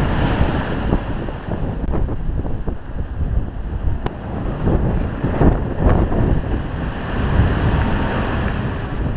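Wind buffeting the microphone: a loud, gusty rumble that swells and falls.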